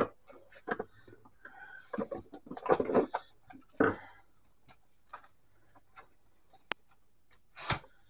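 Irregular clicks, knocks and clatter of screwdrivers and electric-typewriter parts being handled on a plywood workbench. A burst of knocking comes around the middle, and one heavier knock comes near the end as the typewriter mechanism is moved.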